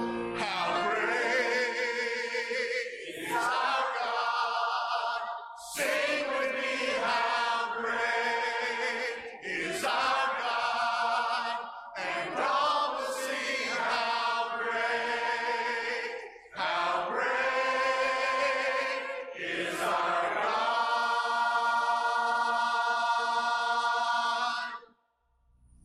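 Church choir singing a hymn together with a male song leader on a microphone, in phrases of long held notes. The final held note cuts off near the end.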